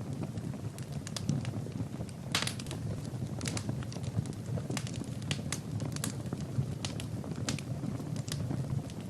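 Fire in a fireplace crackling: irregular sharp pops over a steady low rumble of the flames, with a louder pop about two and a half seconds in.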